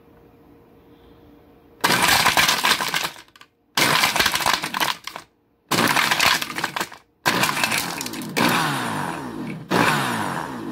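Hamilton Beach smoothie blender's 650-watt motor crushing plain ice cubes with no liquid, in a plastic jar. It is pulsed on and off in four bursts about a second apart, starting about two seconds in, with the last burst about three seconds long. The ice chunks clatter against the jar.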